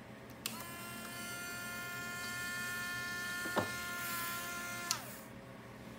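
Small electric motor on an RC crawler whining steadily for about four and a half seconds. It starts with a click, has a sharp tick partway through, and winds down falling in pitch at the end, in step with the model's snow plow blade being lowered.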